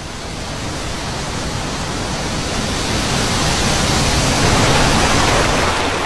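A rushing noise with no clear pitch that builds steadily over several seconds and eases off near the end.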